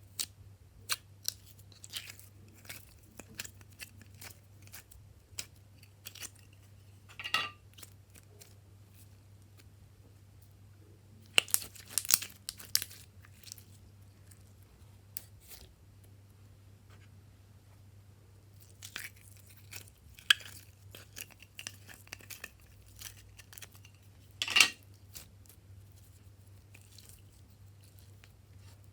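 Hands kneading and stretching clay slime: scattered sticky clicks, crackles and tearing sounds, with a few louder spells of crackling.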